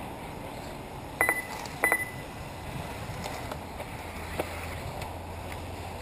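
Two short, high-pitched beeps about two-thirds of a second apart, standing out over a steady background hiss.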